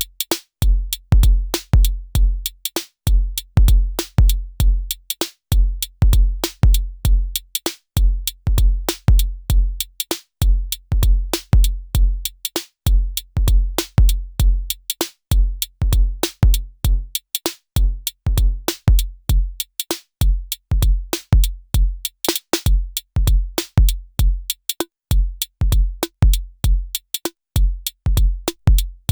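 Elektron Syntakt drum machine playing a steady electronic drum pattern: deep synthesized kick drums in quick repeated groups, with sharp hi-hat and percussion hits over them.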